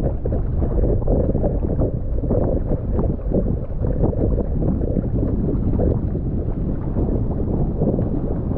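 Wind buffeting the microphone of an action camera mounted on a wingfoil board, mixed with water splashing and slapping against the board as it moves over choppy water. A steady, low rushing with no letup.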